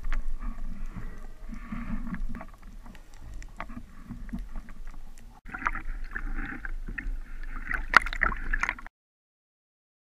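Water gurgling and sloshing against a camera underwater, then, after a cut about five and a half seconds in, louder splashing of waves at the surface with one sharp knock, cutting off to silence near the end.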